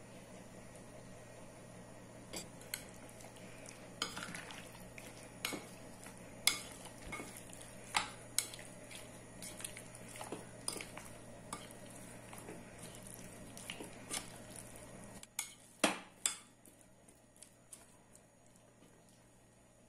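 Metal spoon clinking and scraping against a glass mixing bowl while raw chicken pieces are stirred into a spice marinade: irregular clinks, the loudest few near the end.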